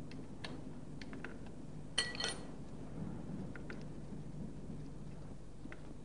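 6 mm Allen key working the hydraulic motor's fixing bolts: faint scattered metal ticks, with a sharper metallic clink and short ring about two seconds in. A low steady hum sits underneath.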